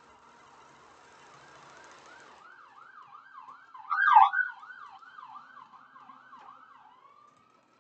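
Emergency vehicle siren: at first a steady held tone, then a fast rising-and-falling yelp, about two to three sweeps a second, with a louder blast about four seconds in. It fades out near the end.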